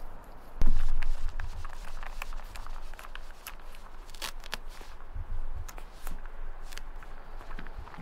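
Cats eating treats from a slow-feeder puzzle bowl: irregular crunching clicks and crackles as they chew and nudge the bowl, with a loud bump just over half a second in and softer thuds around five seconds in.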